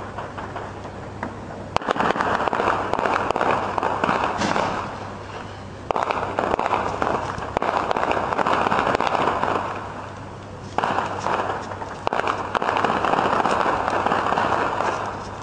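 Heavy gunfire: dense, rapid, crackling shots in three long stretches of several seconds each, with short lulls between them, over a steady low hum.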